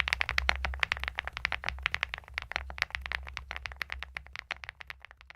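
Typing on a Ticktype DP104 full-aluminium, full-size mechanical keyboard: a rapid run of keystroke clacks, several a second, trailing off near the end.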